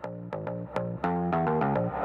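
Background music: quick plucked notes over a bass line in a steady rhythm.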